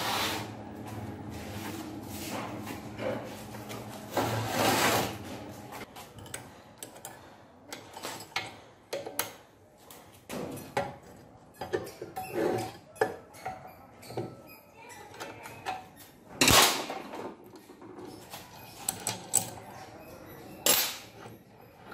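Irregular metal clinks, taps and scrapes of hand tools and parts on a small single-cylinder engine's output shaft and clutch drum and a gearbox casing, with two louder knocks in the second half.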